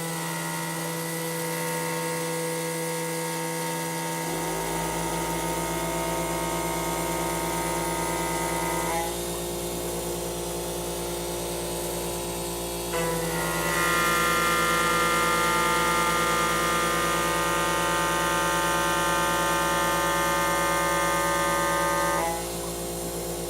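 CNC router spindle with an 8 mm carbide cutter milling aluminium: a steady high whine made of several tones over a low hum. The whine drops back about 9 seconds in, returns louder about 13 seconds in, and eases again near the end as the cut changes.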